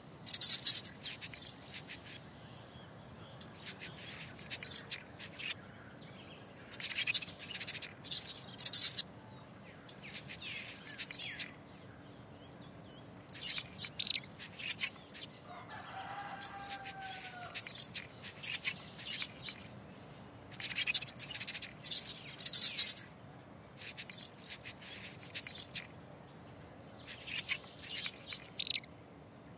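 Squeaking sound effect of a mouse: rapid, high-pitched squeaks in bursts a second or two long, repeating about every two to three seconds. A few faint bird calls sound now and then underneath.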